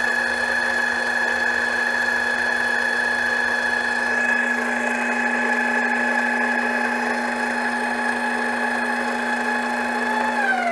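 Grizzly G0765 mini-lathe's spindle motor running steadily at about 680 RPM with a constant whine. Near the end the speed knob is turned down and the pitch falls as the spindle slows.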